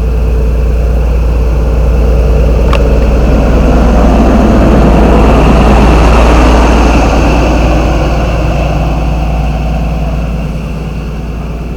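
Diesel train's engine and running noise over a steady low rumble, swelling to a peak about halfway through and fading away near the end. There is a single short click about three seconds in.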